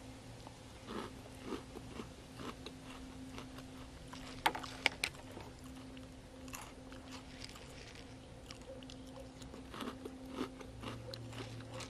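A person chewing a spoonful of small crunchy sugared cereal balls in milk, with soft crunches throughout and two sharp clicks about four and a half seconds in. A steady low hum runs underneath.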